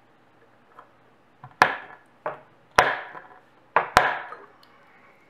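A small screwdriver slipping in the centre screw of a hard drive's spindle clamp: three sharp metallic clicks about a second apart, each with a brief ring, and a lighter click just before each, as the bit is too small to turn the screw.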